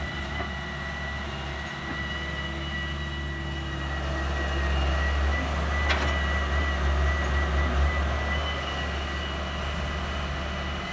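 Heavy machinery engine running steadily, with a thin high whine over a low rumble. It grows louder for a few seconds midway, with one sharp click about six seconds in.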